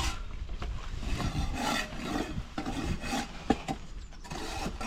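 Irregular scraping and rubbing with scattered knocks, one sharp knock about three and a half seconds in, as a long drill bit jammed in the ground under a concrete foundation is worked by hand after it stalled the drill.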